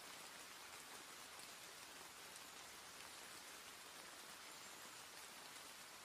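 Rain falling steadily: a faint, even hiss of rainfall with scattered small drop ticks.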